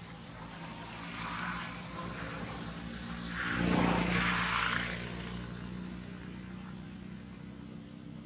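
A motor engine passing by: a steady droning hum that swells to its loudest about four seconds in, then fades back.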